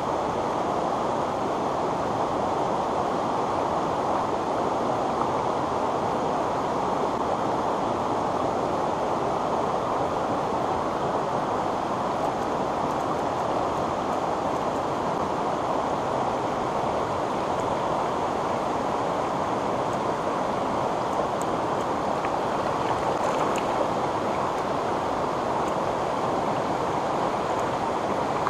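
Steady rush of a small rocky mountain stream flowing over stones.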